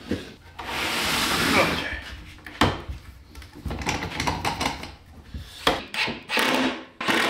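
Plywood drawer box scraping and knocking against the cabinet carcass as it is test-fitted, with several sharp wooden knocks in the second half. The fit is a little too tight.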